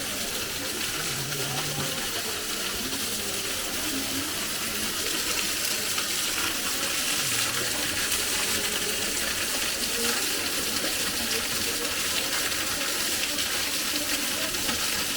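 Waterfall of a small stream pouring over a rock overhang, a steady rushing of falling water.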